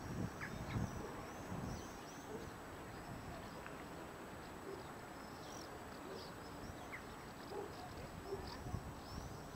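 Birds calling in many short high chirps over faint outdoor background noise, with some low thumps and rumble in the first couple of seconds.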